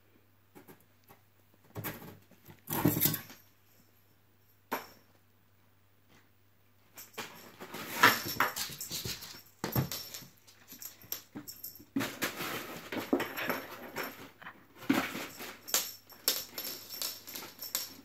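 Maine Coon cat scrambling and pouncing in and around cardboard boxes on a wood floor, making irregular bursts of scratching, rustling and knocks. A few short bursts come first, and the scuffling becomes almost continuous from about seven seconds in.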